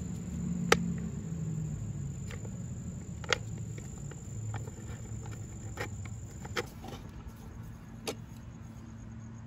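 Hex key working the centre bolt of a chrome motorcycle air cleaner cover: a handful of sharp, irregular metallic clicks and taps as the key turns and knocks against the bolt and cover, the loudest about a second in.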